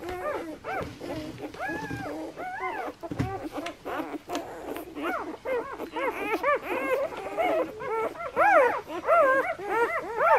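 Newborn German Shepherd puppies squeaking and whimpering as they nurse, many short rising-and-falling cries overlapping. The cries grow busier and louder from about halfway through.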